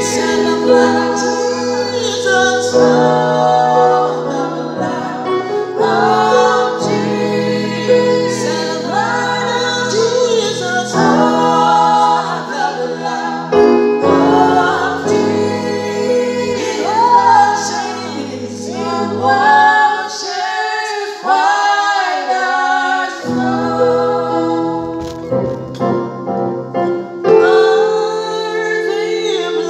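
A man singing a slow gospel song with long held notes, accompanying himself on an electronic keyboard with sustained chords and a bass line. The bass drops out for a few seconds past the middle, then comes back in.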